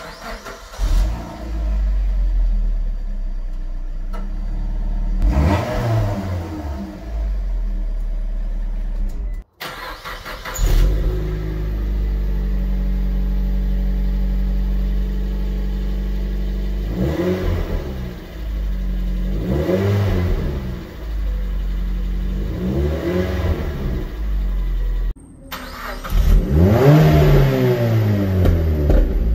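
Suzuki Swift Sport ZC31S's 1.6-litre four-cylinder engine idling and blipped through its exhaust, in three clips. First on the standard exhaust, with one quick rev. Then with an Ulter sport rear silencer (back box) fitted: steady idle with three short revs, and near the end a louder rev.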